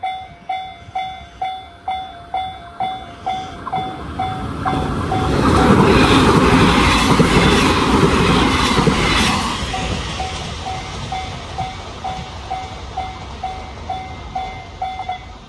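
Japanese level crossing warning bell ringing at about three strikes a second while a train passes over the crossing. The train's wheel clatter on the rail joints drowns out the bell for about five seconds in the middle. Once the train has gone the bell is heard again and stops near the end as the crossing signal clears.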